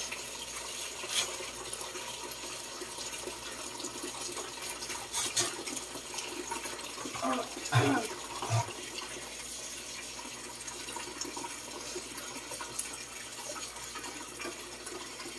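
Water running from a tap into a kitchen sink while things are rinsed by hand, with a few light knocks and clatters of items in the sink.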